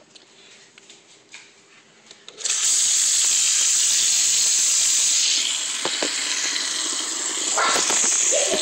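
A tap turned on about two seconds in, water running steadily into a sink, a little softer after a few seconds, with a few light knocks near the end. Before it, only faint small clicks.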